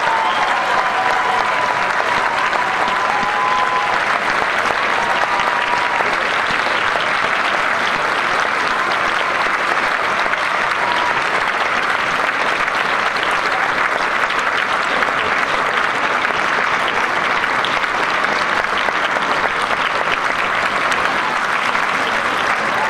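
Audience applauding steadily, with a few brief high tones over the clapping in the first few seconds.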